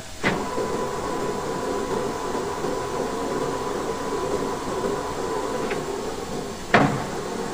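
Metal lathe switched on about a quarter second in, then running steadily with the chuck turning and a faint steady whine. A single sharp knock comes near the end.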